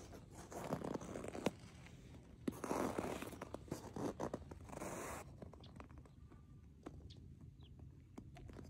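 Footsteps crunching on packed snow, a run of rough crunches in the first five seconds or so, then quieter with only faint ticks.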